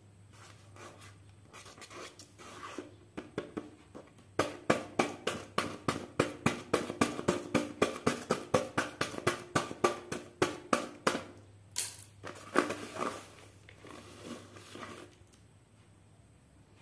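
A small knife blade scratching and slicing through paper in quick repeated strokes, about three or four a second, then paper ripping and rustling as it is pulled open.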